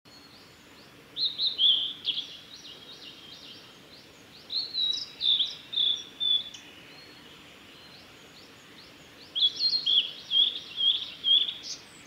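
Male blue-and-white flycatcher singing three phrases of short, down-slurred whistled notes, a few seconds apart.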